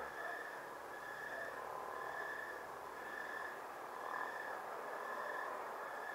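Night insects calling in a steady chorus: a high-pitched pulse repeating about once a second, with fainter lower calls now and then over a faint hiss.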